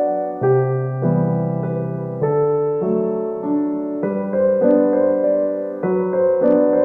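Background music: a gentle piano melody with held chords, notes changing about every half second.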